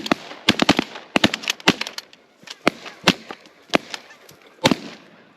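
A volley of shotgun blasts from several hunters firing on passing geese. More than a dozen shots come in quick succession over the first two seconds, then single shots follow every half second or so, the last one near the end.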